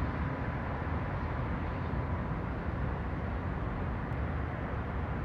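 Steady low rumble of distant city traffic, an even hum with no single event standing out.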